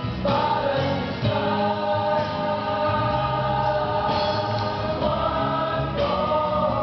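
A chorus of voices singing a stage song over backing music, holding long notes in chords.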